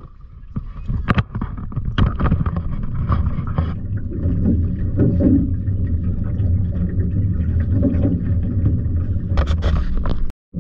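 Outboard motor of a small aluminum fishing boat running, a steady low drone. Knocks and rubbing from the camera being handled come in the first two seconds and again near the end.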